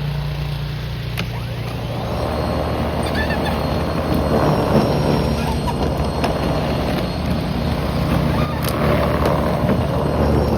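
EGO 56-volt cordless snow blower running with a steady motor hum while its auger and chute churn and throw snow; the noise grows fuller and louder about two seconds in as snow is fed in.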